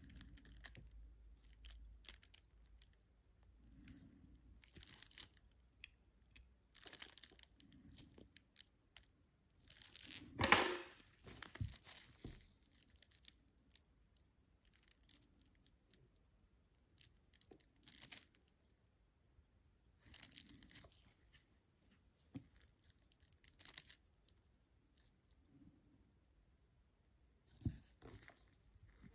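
Light handling noises of a wristwatch and small tools on a watchmaker's bench: scattered soft clicks and rustles, with one louder rustle about ten seconds in.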